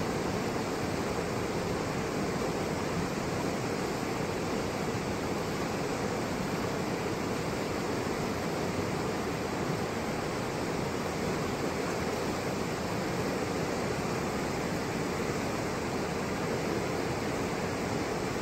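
Fast mountain river running over boulders and rapids: a steady, even rush of water.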